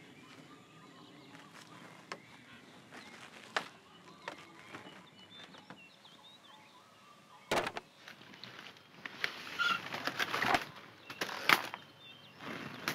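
Faint birds chirping with a few light clicks, then from about halfway a run of louder, irregular rustling and footsteps on dry ground.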